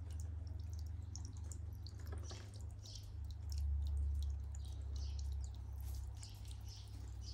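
Faint scattered crunching of footsteps on gravel over a steady low rumble of wind or handling on the microphone.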